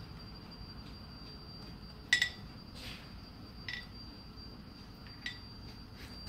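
A few light clinks with a brief ring as a blind cord's wooden pull, batted by a cat, knocks against the window glass and sill; the loudest is a quick double knock about two seconds in. A faint steady high whine runs underneath.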